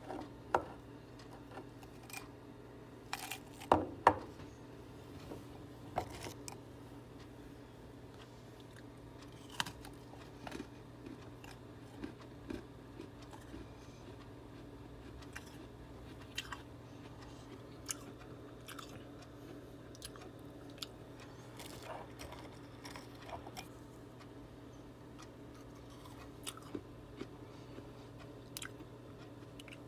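Freezer frost being bitten and chewed: scattered crisp crunches, the loudest about four seconds in, over a faint steady low hum.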